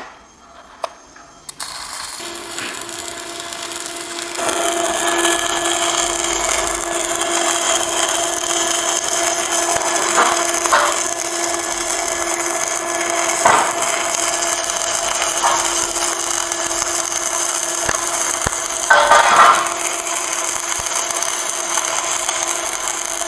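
Stick (SMAW) welding arc from an RB 6013 electrode, struck about a second and a half in, then burning with a steady crackling hiss and a steady hum underneath, with a few brief louder crackles.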